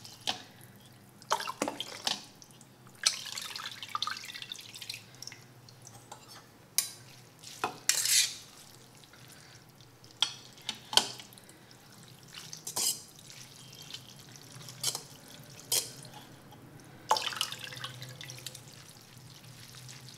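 Cooked noodles being stirred with a metal fork in a stainless-steel mesh strainer sitting in ice water: water sloshing and dripping, with scattered sharp clinks of the fork against the strainer.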